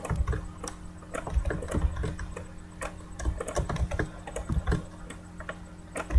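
Typing on a computer keyboard: irregular runs of key clicks with short pauses, over a faint steady hum.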